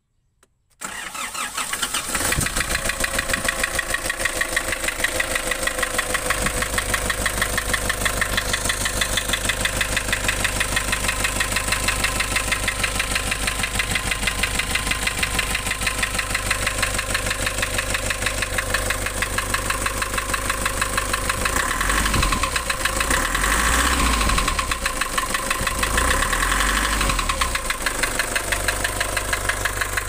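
Nissan ZD30 3.0-litre four-cylinder diesel starting up about a second in, then idling with a steady fast pulsing. The idle is rough, which the owner puts down to lost compression.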